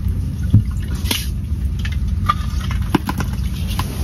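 Slotted ice scoop skimming slush out of an ice-fishing hole: water dripping and splashing, with a few small taps, over a steady low rumble.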